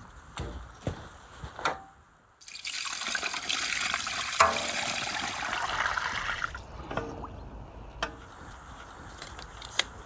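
Water poured from a bucket into a large aluminium pot of goose meat: a steady splashing pour lasting about four seconds, starting a little over two seconds in. A few light knocks come before it.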